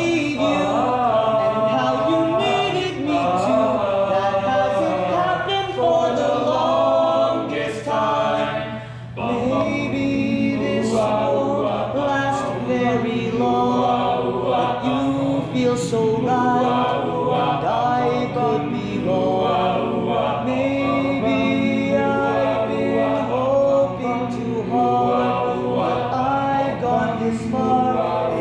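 A young men's a cappella group singing together in barbershop-style harmony, unaccompanied, with a brief break about eight seconds in.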